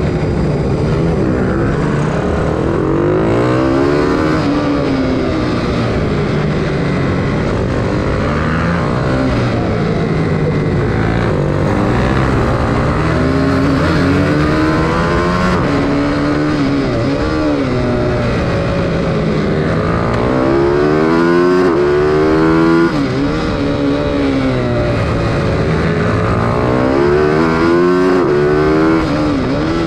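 Bucci BR12 GP minibike's engine heard onboard at race pace. Its pitch climbs through the gears and drops off for the corners, over and over.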